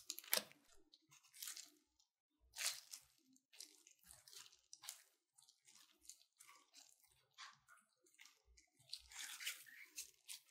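Faint crinkling and rustling of disposable plastic gloves in irregular bursts as gloved hands roll and press a ball of custard filling, with a denser spell of crinkling near the end.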